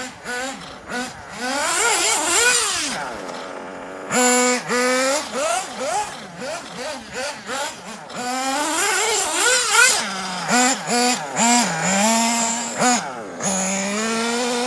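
Kyosho Inferno MP9 TKI4 1/8-scale nitro buggy engine revving up and down as it is driven, with its pitch rising and falling. It drops away briefly a few seconds in, then returns with a run of short throttle blips and longer rising pulls.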